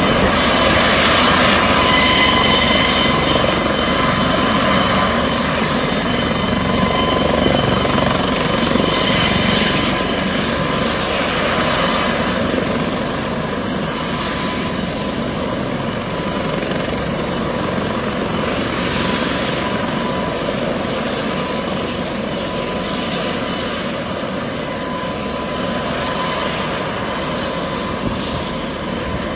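Helicopter on the pad after landing, its engines and rotor running: a steady high whine over a loud rushing noise that eases off gradually.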